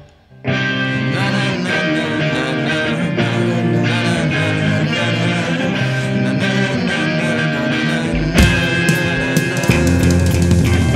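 A rock band playing with electric guitar, starting after a brief break of near silence. The band gets louder and fuller about eight seconds in.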